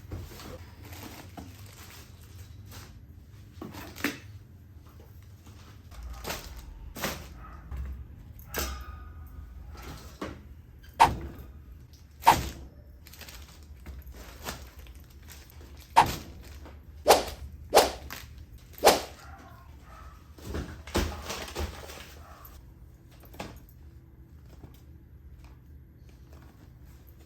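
A series of separate knocks and thunks, irregularly spaced. A cluster of louder, sharper ones, each with a brief ring, comes in the middle.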